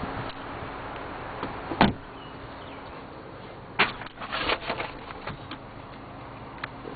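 A Volkswagen Passat's car door shutting once, about two seconds in, after which the outside noise falls away. A run of light clicks and knocks follows a couple of seconds later.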